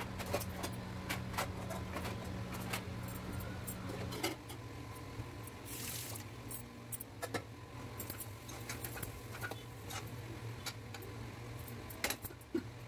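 Dal simmering in a steel kadai on a gas burner: faint irregular bubbling pops and ticks over a low steady hum, with a metal clink about twelve seconds in as a steel plate is set on as a lid.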